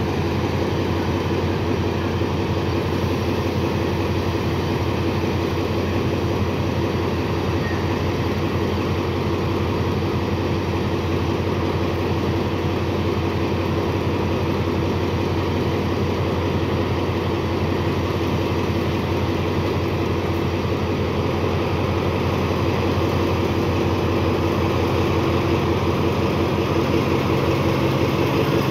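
TCDD DE 24000-class diesel-electric locomotive idling at a standstill, its diesel engine running with a steady, deep drone and an even hum. It grows a little louder near the end.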